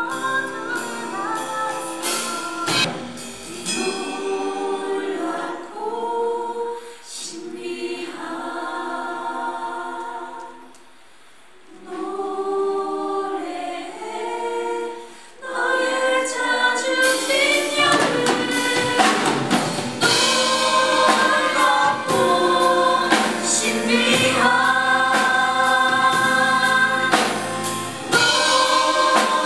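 Musical-theatre cast singing with a live band. A quieter sung passage dies almost away about ten seconds in. Then the full company comes in as a choir with drums and grows louder from about fifteen seconds on.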